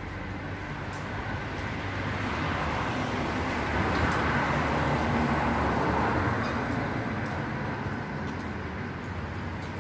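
Road traffic: a car passing on the road, its engine and tyre noise swelling about halfway through and then fading, over a steady low hum.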